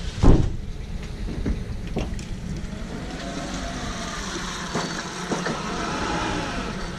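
Forklift running as it drives up with a pallet, getting a little louder over the last few seconds. A loud thump sounds about a third of a second in, followed by a few lighter knocks.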